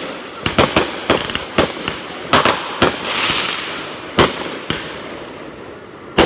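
Aerial fireworks exploding: around ten sharp bangs at irregular intervals, with a hissing crackle swelling about three seconds in.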